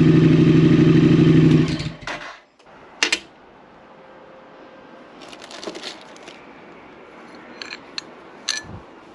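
Triumph Speed Twin parallel-twin engine idling steadily, then switched off just under two seconds in. It is followed by a few small clicks and knocks, the sharpest about three seconds in.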